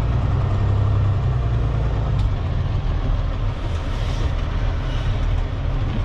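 Heavy diesel dump truck engine running steadily with a deep, even drone as the loaded truck creeps and maneuvers at low speed.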